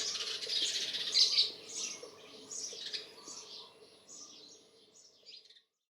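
A bird chirping, a run of short high-pitched calls about every half second, fading out.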